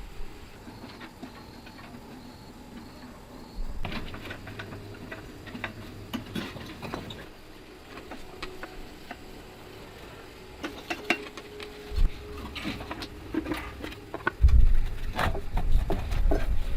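Scattered light clicks and taps, with a louder knock about twelve seconds in and heavier knocks over a low rumble in the last two seconds.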